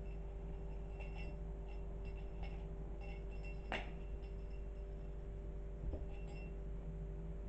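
Steady low electrical hum with faint light taps and rustles from a kitten playing with a wand toy on a bed, a sharper tick a little before the middle and a soft thump about three-quarters through as the kitten pounces on the toy.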